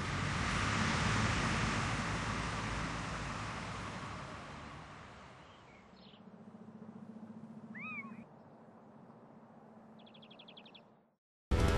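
Street noise swells to its loudest about a second in and fades away over several seconds. After it, in a quiet spell with a faint low hum, there is a single short animal call that bends up and down, like a meow, then a brief fast high trill. Music starts abruptly near the end.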